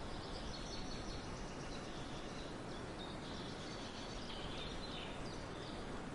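Wind blowing through a barley field as a steady rustling hiss, with swallows twittering in short high chirps, most of them in the middle of the stretch.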